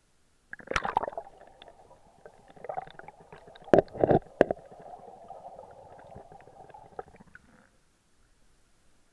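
Creek water heard through a camera dipped under the surface: muffled gurgling and bubbling, with loud sloshing knocks about a second in and again around four seconds in, dying away shortly before the end.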